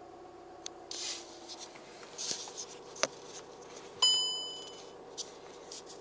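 Rustling and handling clicks inside a car cabin, with a faint steady hum at the start that fades about a second in. About four seconds in, a single bright electronic chime rings out and fades within a second; it is the loudest sound.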